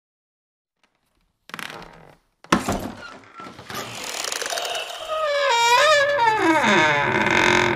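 Intro sound effects: a brief whoosh, then a sharp hit about two and a half seconds in, then a rising whoosh under a long, wavering creak that falls in pitch, as of an old wooden door swinging open.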